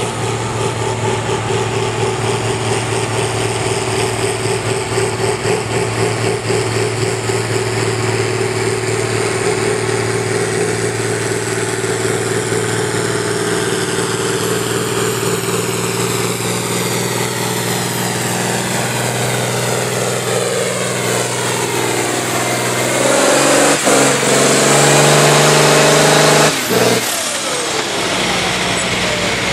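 John Deere tractor's diesel engine running hard under load, pulling a tractor-pull sled, with a steady, loud drone. About 27 seconds in, the sound switches to a John Deere 3010 diesel running steadily close by.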